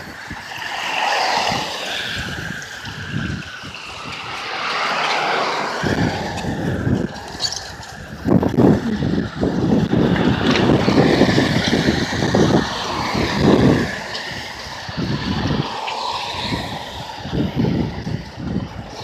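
Traffic passing on a wet street: car engines and tyres on wet pavement, swelling as cars go by close, loudest in the middle stretch.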